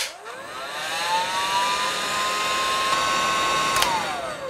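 Electric heat gun switched on with a click, its fan whine rising in pitch over about a second and then holding steady over the rush of air. Near the end it is switched off with a click and the whine falls away as the fan spins down.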